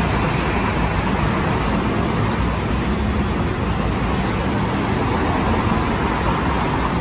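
Steady road traffic noise: cars and a truck passing on a multi-lane road.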